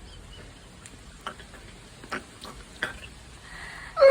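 A few scattered soft clicks and scrapes, about a second apart, from digging potatoes out of the soil by hand.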